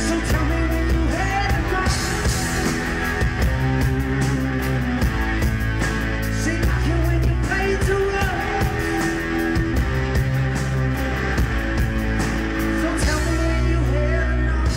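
Live rock music played loud, led by an SG-style electric guitar with the band behind it.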